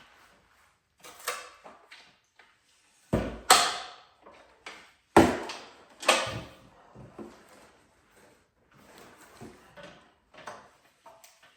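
Clunks, knocks and rattles from the parts of a DeWalt DWX724 miter saw stand as its spring clips and pins are worked. Four loud knocks come between about three and six seconds in, with lighter clicks around them.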